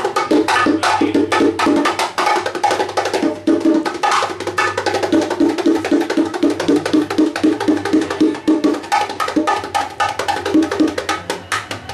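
Bongos and congas played by hand in a fast, dense, driving rhythm of sharp slaps and ringing open tones, with no break.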